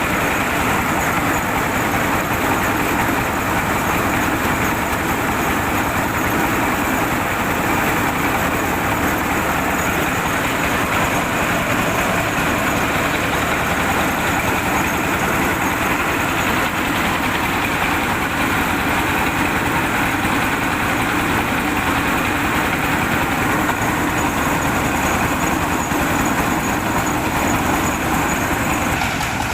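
Diesel engine of a mobile rice-milling machine running steadily, a dense, even machine din with no pauses.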